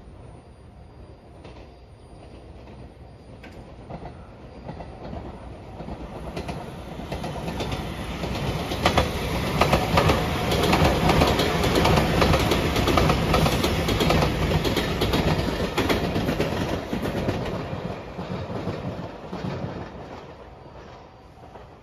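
JR Shikoku 8000 series electric limited-express train passing, its wheels clacking over the rail joints. It grows louder over the first several seconds, is loudest in the middle, and fades away near the end.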